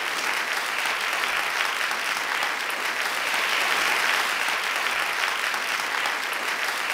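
Steady applause, many hands clapping together in a dense, even patter.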